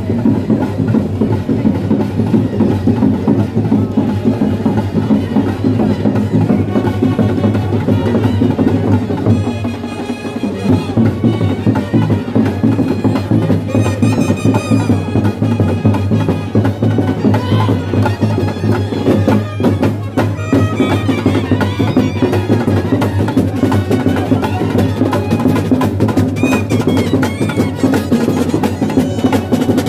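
Loud procession music led by drums: a fast, dense, continuous beat over steady sustained low tones.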